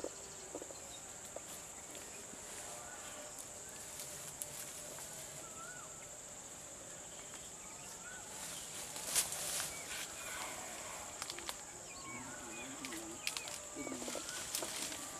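Steady high-pitched insect chorus. Scattered brief rustles and clicks sound over it, the sharpest about nine seconds in.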